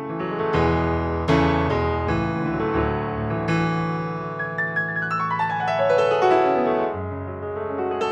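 Keyboard music played on a sampled piano-like sound from a Kontakt library: chords over deep held bass notes, with a quick falling run of notes about halfway through.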